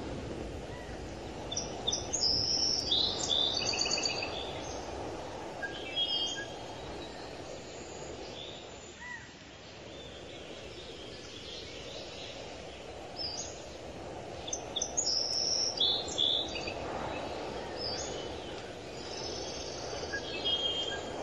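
Small birds chirping in two spells of quick, high repeated notes over a steady low background noise.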